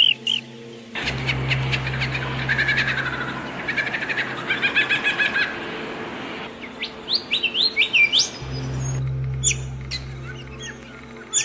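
Several small birds chirping and calling: quick trills first, then a run of sharp rising whistled notes past the middle, then scattered chirps. A steady low hum sits beneath for most of it, and the sound changes abruptly a few times.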